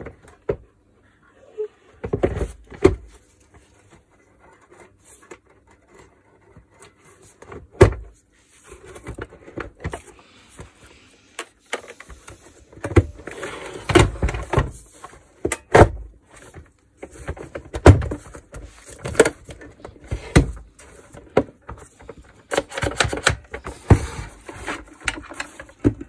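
Hard plastic vacuum cleaner housing parts (Makita VC2512L) being handled and fitted together: irregular knocks, clicks and short scraping clatters, sparse at first and busier in the second half.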